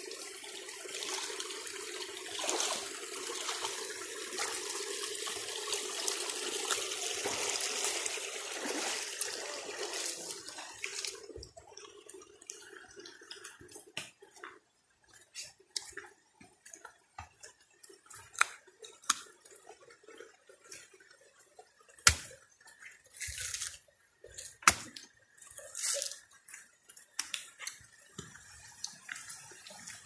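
Rushing water of a stream, a steady noise that fades away about ten seconds in. After that come scattered footsteps and knocks on a wet path.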